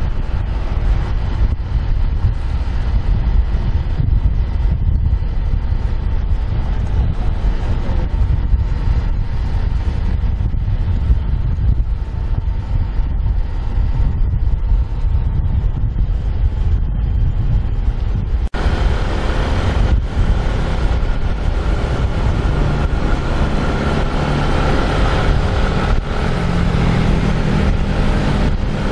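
Wind buffeting the microphone of a bicycle moving at riding speed, a steady loud rumble. About two-thirds of the way through it cuts out for an instant and comes back brighter, with faint steady tones over the rumble.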